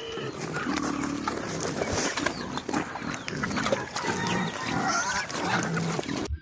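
A group of farm animals making many short grunts and squeals over a busy scuffling background, cut off abruptly at the end.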